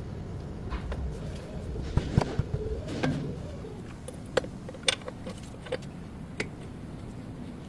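Scattered metallic clicks and knocks of a car's drive axle being handled and fitted back into place through a new axle seal, over a low steady rumble.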